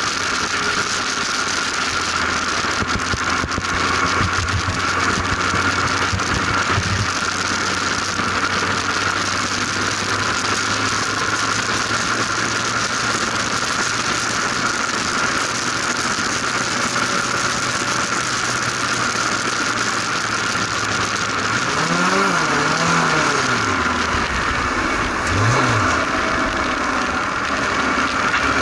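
Formula RP1 single-seater race car's engine running at speed, heard from the open cockpit with wind rush over it. Near the end the engine pitch rises and falls a few times.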